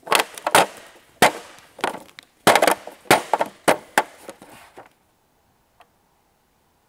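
A mallet striking hard objects: about a dozen sharp, irregular knocks in quick succession, stopping about five seconds in.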